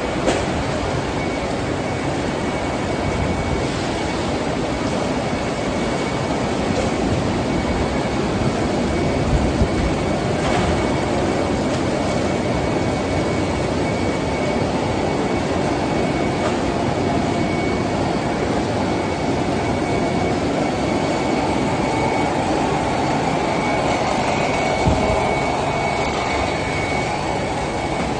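Steady din of a fruit-canning line's washing and grading machinery running, with a thin, steady high whine through it.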